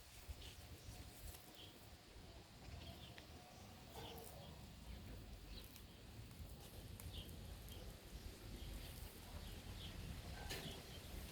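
Faint outdoor ambience: scattered short, high bird chirps over a low rumble.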